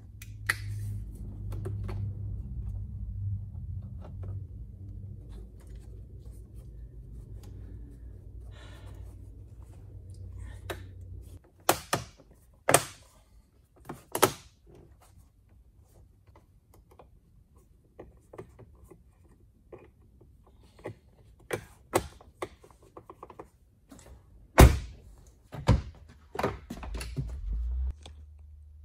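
Sharp plastic knocks and clicks from a Peugeot 407's interior door trim as it is pressed and worked by hand around the door handle, several separate strokes with the loudest near the end. A low steady hum runs under the first third and then stops.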